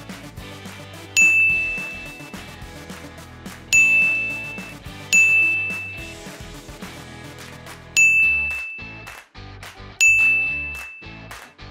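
A bright, high bell-like ding sounds five times, each ringing out and fading over about a second, over light background music.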